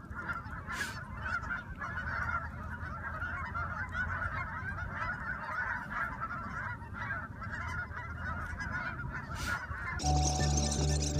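A large flock of geese honking and calling all at once, a steady din of overlapping calls from the water. Background music with a steady beat comes in near the end.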